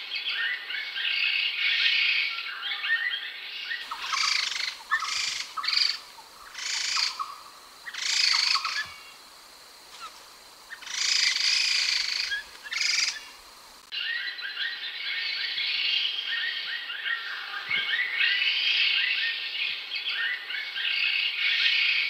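Laughingthrushes chattering in a dense, continuous jumble. From about 4 to 14 seconds this gives way to separate loud, harsh calls with short pauses, then the continuous chattering resumes.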